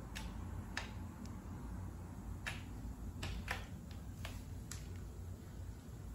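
About eight short, sharp clicks at irregular intervals over a steady low hum.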